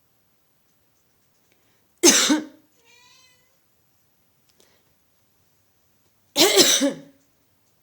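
A person coughs twice, about four seconds apart. A cat answers the first cough with a short, faint meow.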